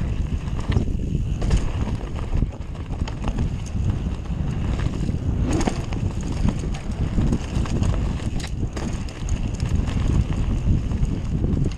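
Mountain bike riding fast down a rough dirt trail: wind buffeting the camera microphone in a steady low rumble, with frequent knocks and rattles from the bike over the bumps.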